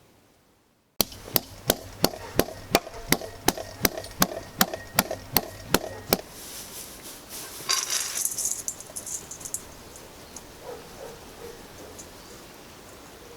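A run of sharp, evenly spaced knocks, about three a second, starting about a second in and stopping after about five seconds, followed by a brief rustle.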